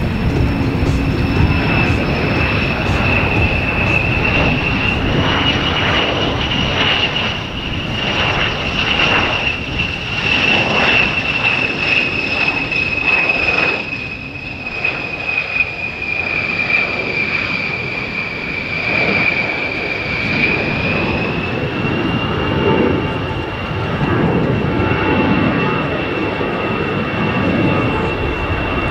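An A-10 Thunderbolt II's twin General Electric TF34 turbofans running in flight: a steady high whine over a dense jet rumble. The whine's pitch sags slowly in the middle and climbs back about twenty seconds in.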